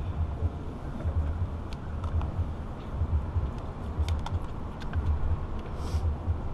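Wind buffeting the action camera's microphone in uneven low gusts, with a few faint small clicks.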